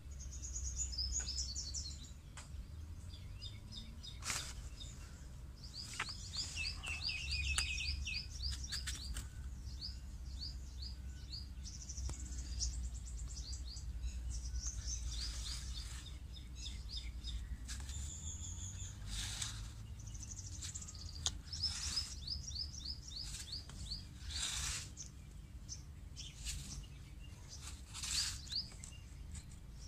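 Small birds chirping in quick runs of short, high, falling notes, repeated again and again, over a low steady rumble.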